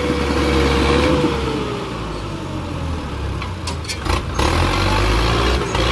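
ACE tractor's diesel engine running hard under heavy load as it tries to drag a heavily loaded trolley stuck in mud; its note sags a little about a second in. A few short knocks come in the second half.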